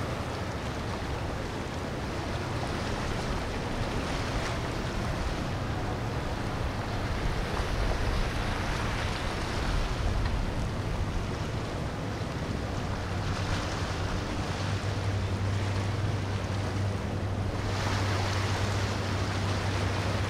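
Boat engine running under a steady wash of water and wind noise. The low engine hum grows stronger about fifteen seconds in.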